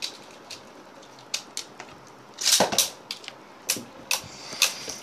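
Beyblade spinning tops clashing and knocking against the walls of a clear plastic stadium: a string of sharp, irregular plastic clicks and clacks, loudest in a quick cluster a little past halfway.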